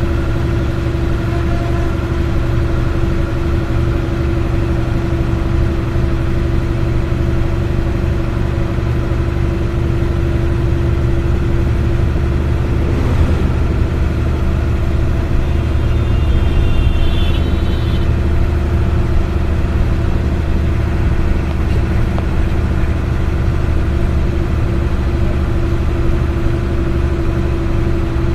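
Steady engine drone and road noise of a vehicle driving along, heard from on board, with a strong low hum and a steady mid-pitched tone throughout. A brief high-pitched tone sounds about two-thirds of the way through.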